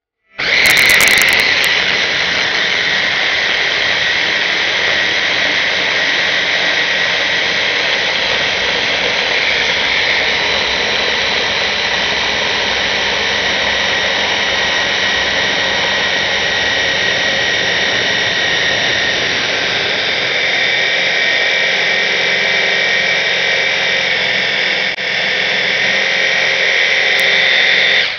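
Electric stick (immersion) blender running at full speed in a tall plastic beaker, puréeing raw chicken breast with vegetables and egg whites: a loud, steady high motor whine. It switches on right at the start, dips briefly near the end, and cuts off.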